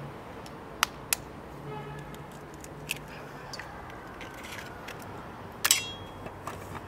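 Eggs tapped and cracked against the rim of a stainless steel mixing bowl: sharp taps, two close together about a second in, another near three seconds, and a louder knock near six seconds that sets the bowl ringing briefly.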